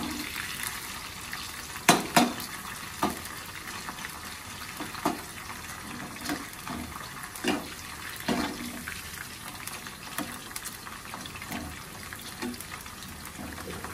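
Corn kernels frying in hot oil in a metal pot, a steady sizzle, while a metal spoon stirs them and knocks and scrapes against the pot at irregular moments, loudest twice about two seconds in.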